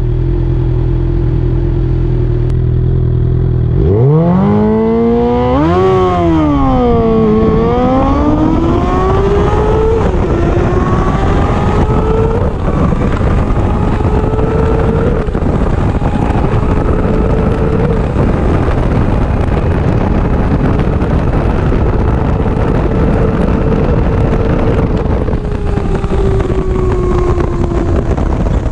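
Suzuki GSX-R 750 race bike's inline-four engine idling at the start line, then revved hard about four seconds in as it launches, swooping up and down before it pulls away. It then accelerates flat out through the gears, the pitch climbing and dropping back at each upshift, with wind noise building, and the revs fall away near the end as it slows.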